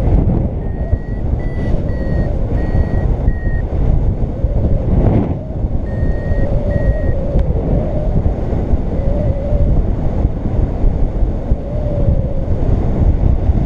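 Paraglider variometer beeping: a run of about five short high beeps, then two more about halfway through, the sound it makes when the glider is climbing in lift. Loud wind rumble on the microphone from the airflow in flight.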